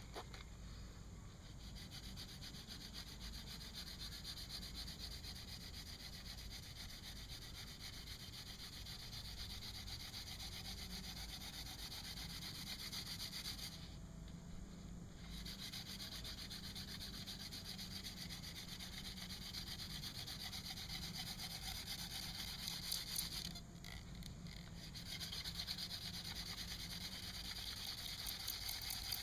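Hand drill for friction fire: a mullein stalk spindle spun back and forth between the palms, its tip rubbing in a box elder hearth board in a steady scratchy rasp. It stops briefly twice, once around the middle and again later.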